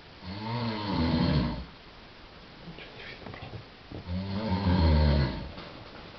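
Sleeper snoring: two long, deep snores, one near the start and another about four seconds later.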